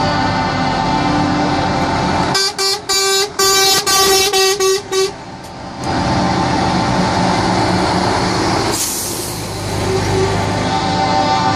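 Trucks' air horns blaring a held multi-note chord, broken about two seconds in by a rapid string of short toots, then held again. A brief hiss sounds near the end.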